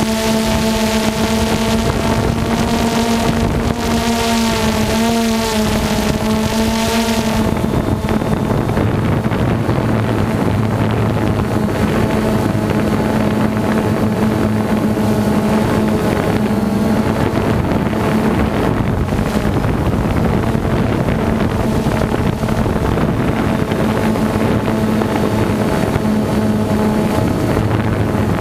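DJI Phantom 2 quadcopter's motors and propellers buzzing steadily in flight, with wind on the microphone. The pitch wavers about four to six seconds in, and the hiss above it drops away about seven seconds in.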